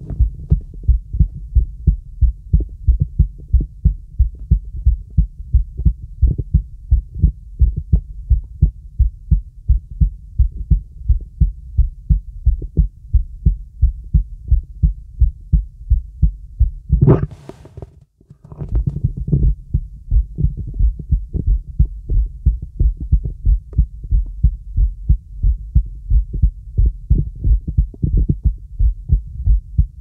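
Human heartbeat heard through the diaphragm of a stethoscope on the chest: steady, regular low beats. About seventeen seconds in, a brief rustling noise interrupts, then the beats pick up again.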